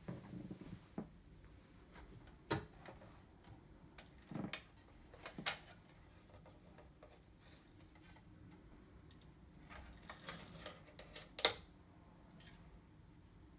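Hands handling a Brother QL-820NWB label printer: scattered plastic clicks and knocks as the roll compartment cover is opened and the packing label inside is pulled out. The loudest click comes near the end.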